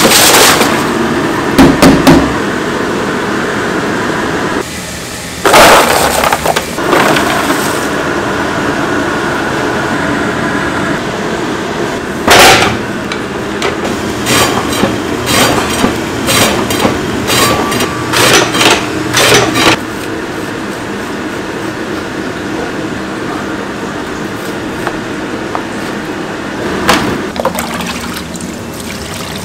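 Kitchen food-preparation sounds: clattering and knocks in a stainless-steel bowl, a slicing machine running as food is fed through it, and a ladle stirring liquid in a plastic tub. A run of sharp knocks comes from about 12 to 20 seconds in.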